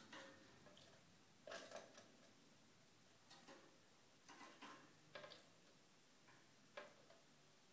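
Canary bathing in a clip-on plastic bird bath: faint, short splashes of water in irregular bursts, about half a dozen.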